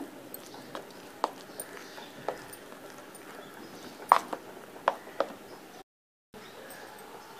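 Metal spoon knocking and scraping against a bowl while stirring a thick, coarse dal vada batter: irregular sharp clicks, the loudest about four seconds in. The sound cuts out for half a second near six seconds.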